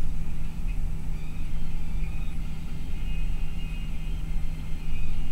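Cabin noise inside a bus cruising on a highway: steady engine and road rumble with a constant low hum.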